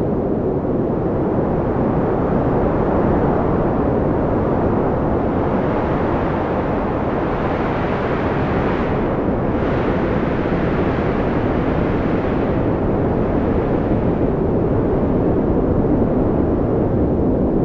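Strong storm wind buffeting a phone microphone: a loud, steady rumbling noise with no break.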